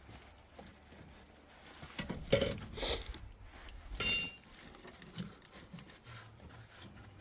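Handling noises with a few knocks and metallic clinks; the loudest, about four seconds in, rings briefly like struck metal.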